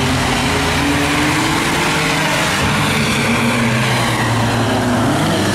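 Several claimer-class race cars lapping together, their engines revving and easing off so that the engine notes rise and fall in pitch.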